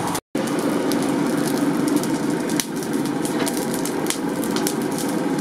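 Charcoal forge fire burning hard under forced air, a steady rush with many small crackles of sparks and burning coals.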